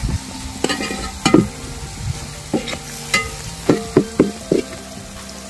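Metal spatula scraping and knocking against a large metal pan as onions, tomatoes and green chillies are stirred in hot oil, over a steady sizzle of frying. The knocks come irregularly, about eight in all, some leaving a short ring from the pan.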